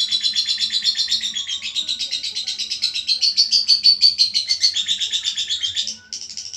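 Lovebird chattering in a fast, unbroken run of high chirps, about ten a second, with a short break near the end.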